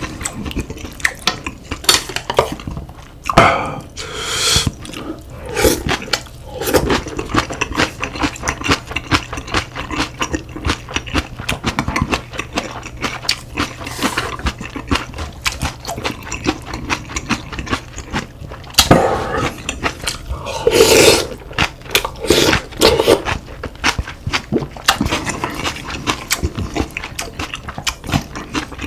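Eating sounds: a spoon and chopsticks clinking and scraping against bowls many times, with chewing in between.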